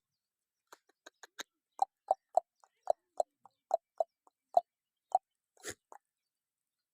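A quick, irregular series of short sharp clicks or pops, about fifteen over five seconds, two or three a second, with a brief noisier sound near the end.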